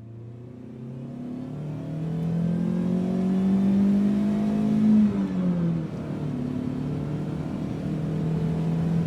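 Heavy machinery engine fading in and revving up, its pitch rising over about five seconds, then dropping and holding at a steady run.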